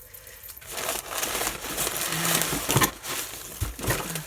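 Packaging crinkling and rustling as it is handled and rummaged through, with a run of sharp crackles.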